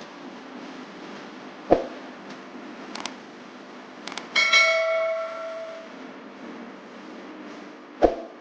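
A single metallic ding that rings for about a second and a half before fading, set between two sharp thumps, one before it and one near the end, over a steady background hiss.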